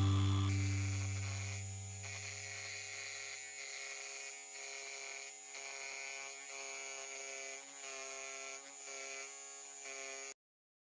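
A music chord fades out over the first two seconds, under the steady hum of a Dremel Moto-Saw scroll saw running as its blade cuts a circle in a thin board. The hum dips briefly every second or so and cuts off abruptly shortly before the end.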